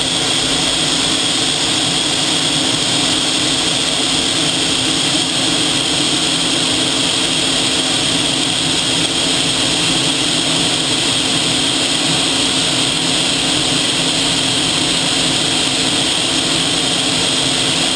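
Military jet in flight heard from inside the cockpit: steady engine and airflow noise with a constant high whine.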